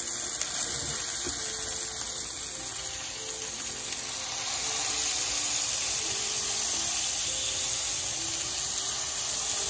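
Ground beef patties sizzling steadily on a hot griddle, one being pressed flat under a spatula.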